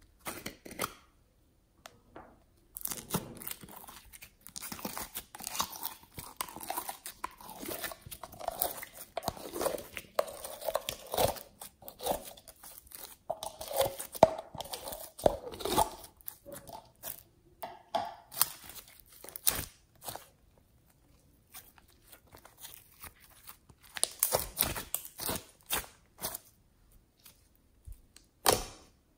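Glitter slime handled close to the microphone: irregular sticky crackles, pops and squelches as fingers pull it out of a plastic jar and press it down, with a few sharp clicks in between.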